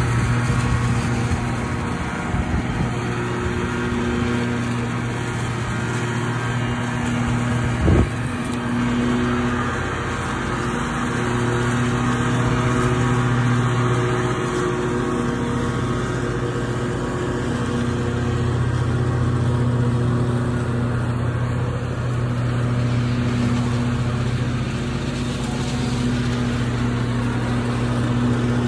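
Riding lawn mower engine running steadily, with a brief thump about eight seconds in.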